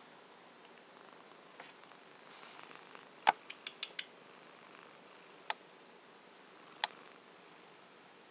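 A few short, sharp clicks over faint room tone: one loud click about three seconds in, three or four quieter ones just after it, and single clicks later on.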